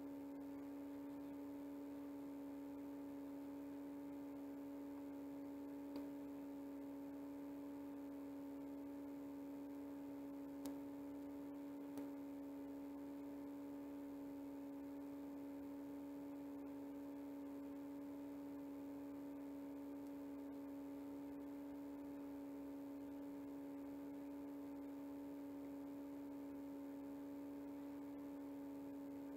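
Steady electrical hum, one low tone with fainter higher tones above it, with three faint clicks.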